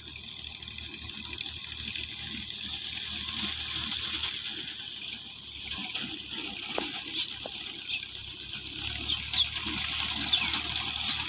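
Tractor-mounted wheat reaper running in the distance: a low engine hum that grows a little stronger near the end, under a steady high hiss that is the loudest part. A few short high chirps come near the end.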